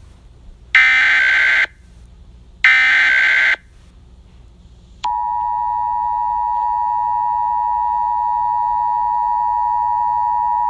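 Emergency Alert System SAME header: a harsh digital data screech, heard twice, each burst about a second long with a second's gap. About five seconds in, the EAS two-tone attention signal starts: a loud, steady dual tone that marks the start of an emergency alert.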